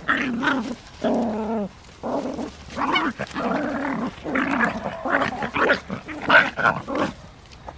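Puppies growling and yapping while play-fighting, in a string of short bouts with brief gaps between them.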